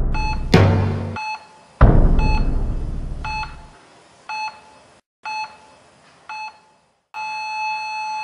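Intro sound effects: two heavy thuds with a low rumble that dies away, over a heart-monitor-style electronic beep about once a second. Near the end the beeps give way to one long steady tone, like a monitor flatlining.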